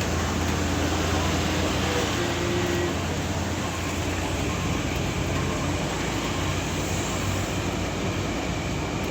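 Heavy truck's diesel engine labouring under load on a steep climb: a steady low drone with road noise, easing slightly a few seconds in.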